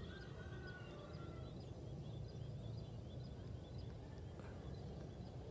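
Faint outdoor background noise with small birds chirping over and over, a few chirps a second, fading out after about three seconds.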